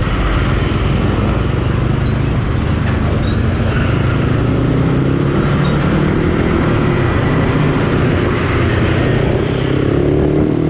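Yamaha Sniper 135's single-cylinder four-stroke engine running steadily through a Replica Pro aftermarket exhaust pipe while the motorcycle is ridden along the road, with traffic around.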